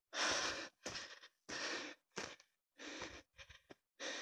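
A person breathing hard and fast, a quick string of loud breaths with short gaps between them: out of breath from walking up a steep slope.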